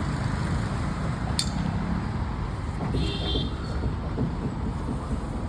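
Steady low rumble of outdoor background noise, with one sharp click about a second and a half in and a short high chirp about three seconds in.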